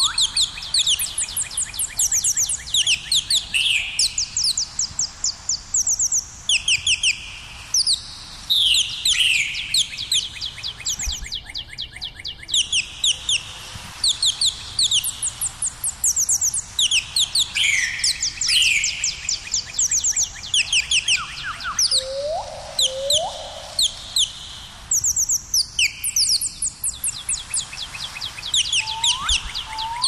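Birds chirping in rapid, overlapping trains of short high notes that continue throughout, with a few short lower rising whistles, two of them about two-thirds of the way in.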